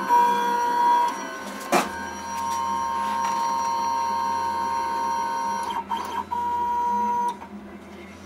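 Stepper motors of a CNC 6040 router driving an axis through its homing run: a steady, tonal whine that stops and restarts. A sharp click comes about two seconds in and a few more around six seconds in as the axis reaches its reference switch and backs off. The whine stops shortly before the end, with the axis at its home position.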